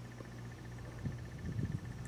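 Quiet background with a steady low hum and a faint, fast, evenly pulsing high tone. A few soft bumps come in the second half as the wet agate is turned in the hand.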